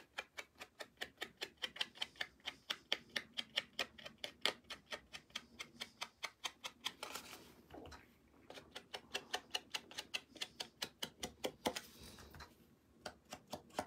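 Small ink pad dabbed rapidly against the edges of die-cut cardstock to ink them, a quick run of light taps about five a second, pausing briefly about eight seconds in and trailing off near the end.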